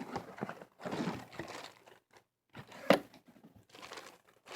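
Bubble wrap and plastic packaging being handled and pulled from a box, rustling and crinkling in irregular spurts, with one sharp snap about three seconds in.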